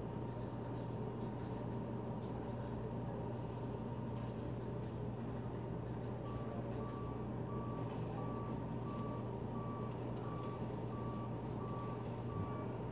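Concrete mixer truck's diesel engine running steadily while it discharges concrete down the chute. About halfway through, a vehicle reversing alarm starts beeping, about one and a half beeps a second.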